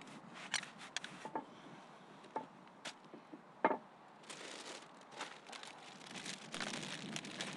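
Close handling noises of people cleaning a grave plaque: a scattering of sharp clicks and small knocks, then about four seconds in a denser rustling hiss with a few louder crackles.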